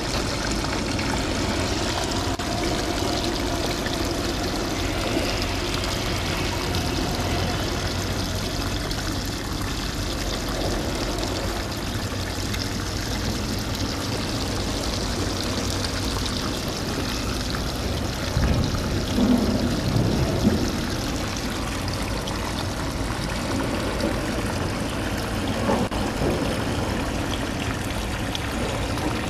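Shallow seawater lapping and trickling among rocks in a tide pool: a steady watery wash, with a few louder bumps a little past the middle.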